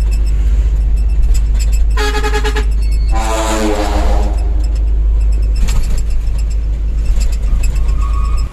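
A dump truck's trumpet air horn sounds twice over a heavy low rumble: a short blast about two seconds in, then a longer, louder one that falls slightly in pitch.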